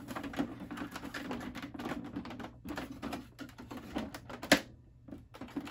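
Plastic clicking and knocking as the bottom case of an iMac G3 is pried up at the back to unsnap its latches, with one sharp, louder snap about four and a half seconds in.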